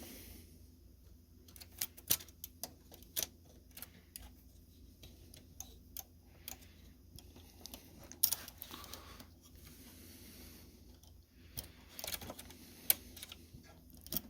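Irregular small metallic clicks and taps from hands working on a Remington Portable typewriter's mechanism, with a few sharper clicks among them.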